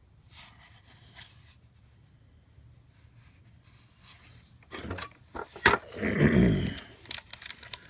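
Tools and objects being handled on a workbench: a few sharp clicks and knocks and a brief scraping rub in the second half, after a few seconds of quiet room sound.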